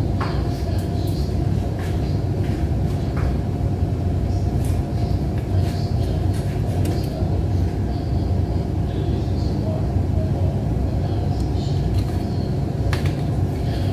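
Steady low mechanical rumble with a faint constant hum, like a running fan or appliance motor, with a few light clicks and knocks scattered through it.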